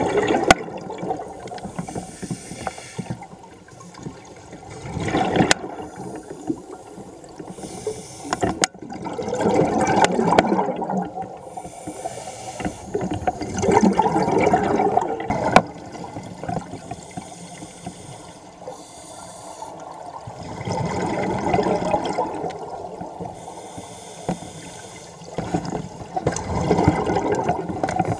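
Scuba regulator exhaust bubbles heard underwater: a diver's breath going out in bubbling surges about every four to six seconds, with a few sharp clicks between them.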